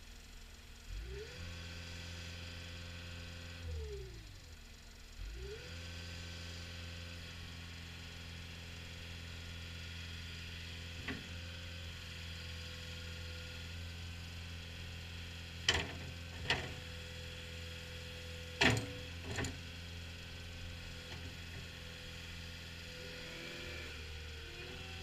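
CAT 236D skid steer loader's engine running: it speeds up about a second in, drops back around four seconds, then speeds up again and holds a steady pitch. A few sharp clunks come in the second half.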